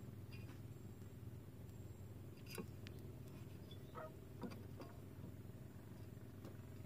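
Knife cutting a small bait fish on a wooden boat rail: a few faint, spaced knocks and scrapes of the blade against fish and wood, over a steady low hum.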